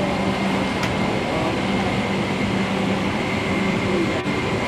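Steady air-conditioning hum inside a parked Boeing 777-300ER's cabin, with a constant low drone and a faint high whine.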